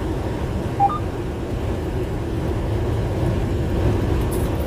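Steady low rumble of an 18-wheeler heard from inside the cab. A short rising two-note electronic chirp sounds just under a second in.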